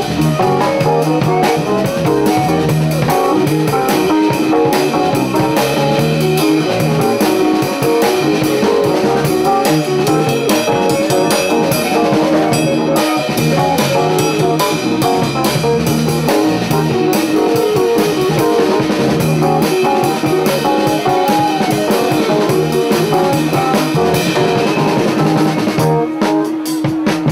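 Music with guitar and a steady drum beat.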